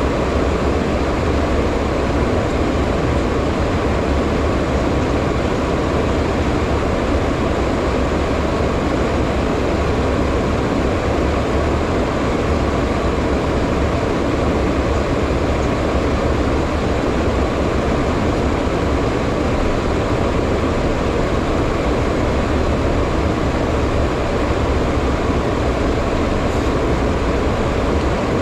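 Steady cockpit noise of a HondaJet business jet in flight: rushing airflow over the cockpit and the hum of its turbofan engines, with a deep rumble underneath and no change in level.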